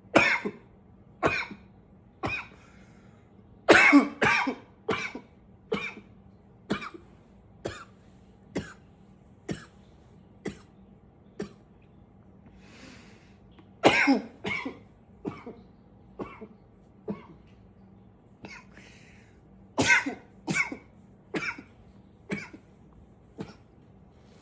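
A man coughing in repeated fits, about one cough a second. Each fit starts loud and tails off into weaker single coughs; the strongest come about four, fourteen and twenty seconds in.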